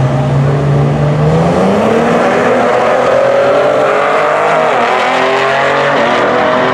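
Two Cadillac ATS-Vs' twin-turbo V6 engines at full throttle off the drag-strip start line. The sound starts suddenly, and the pitch climbs through the gears with short dips at the upshifts, about four and a half and six seconds in.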